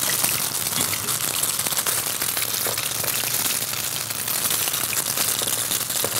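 Food frying in a pan on the stove: a steady sizzle with fine crackling throughout.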